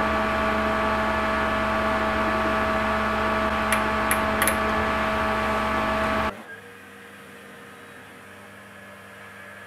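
Steady electric machine hum made of several steady tones, with a few faint metallic ticks around four seconds in. The hum cuts off suddenly a little past six seconds, leaving a much quieter background hum.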